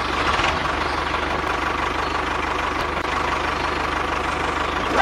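Steady mechanical running sound like an idling engine, with a low, even pulse.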